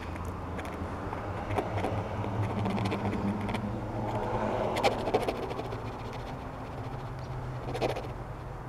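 Nozzle of an adhesive tube scraping and dabbing against a bike seat's foam and fabric as the glue is spread, a few small scrapes standing out, the clearest about five seconds in and near the end. A steady low hum runs underneath.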